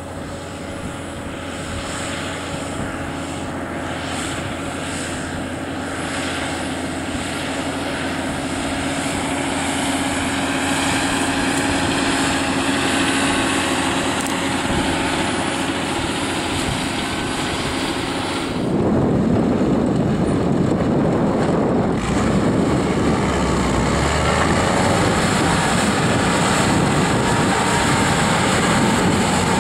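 John Deere tractor's diesel engine running under load as it pulls a reversible plough, slowly growing louder as it nears. About two-thirds of the way through the sound changes suddenly to a McCormick tractor towing a slurry tanker, its engine and running gear louder and noisier.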